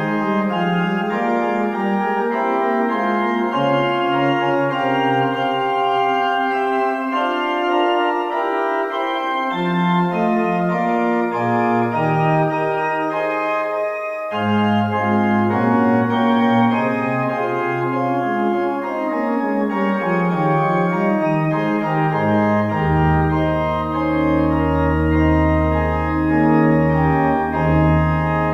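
Organ music: sustained chords moving in several voices, with a brief break about halfway. A deep held bass note comes in about two-thirds of the way through.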